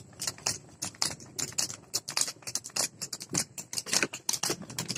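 Water buffalo's hooves clattering on a paved road at a run while it pulls a racing cart, with the cart rattling: a fast, uneven stream of sharp clicks.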